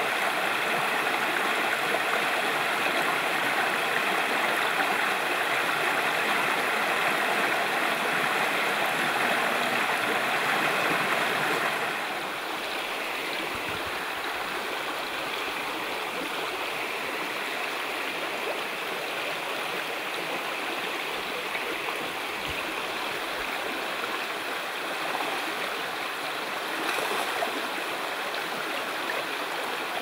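Shallow stream flowing over rocks and riffles: a steady rush of water. About twelve seconds in, it turns a little quieter and softer.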